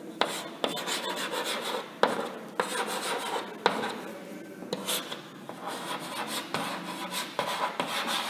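Chalk writing on a blackboard: a continuous scratching rasp, with sharp taps as strokes begin.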